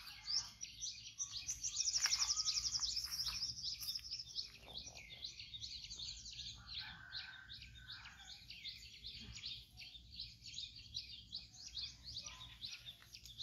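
Several wild birds chirping and calling at once in a dense outdoor chorus. A rapid, high trill about two seconds in is the loudest part.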